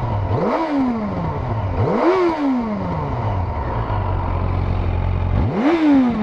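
Yamaha FZ8's inline-four engine idling through its stock silencer and revved three times: about half a second in, about two seconds in, and near the end. Each time the pitch rises quickly and sinks slowly back to idle. The note is fairly subdued, the original exhaust the owner finds too quiet.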